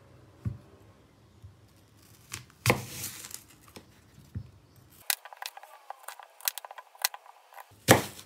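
Kitchen knife slicing a fresh apple into wedges on a wooden cutting board: crisp crunches as the blade cuts through the flesh, and knocks as it meets the board. The loudest cuts come about three seconds in and near the end, with a quick run of small crunchy clicks between them.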